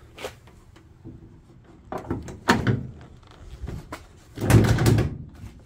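Steel trunk lid of a 1990 Nissan 240SX (S13) being lowered and closed during a test fit: a light click, a couple of clunks, then the loudest clunks about four and a half seconds in as it comes down shut.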